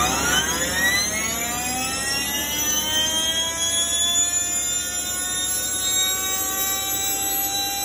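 Water rushing from a nozzle through a clear plastic tube with a steady hiss, over which a whistling tone with several overtones rises in pitch and levels off about four seconds in.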